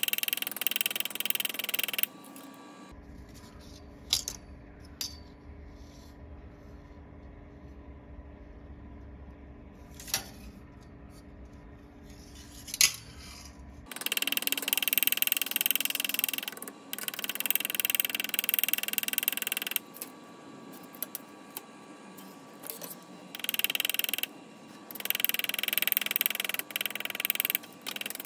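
Rapid tapping of a small pointed body hammer, a reground cobbler's hammer, on a stainless steel drip rail molding backed by a bench vise, knocking out small dings. The tapping stops after about two seconds, leaving only a few single taps over a low hum. It resumes about halfway through in runs with short pauses.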